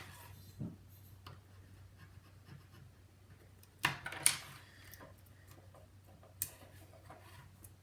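Small tools and phone parts being handled on a work mat: faint rubbing with a few sharp little clicks and taps, two close together about four seconds in and one more about two seconds later, over a steady low hum.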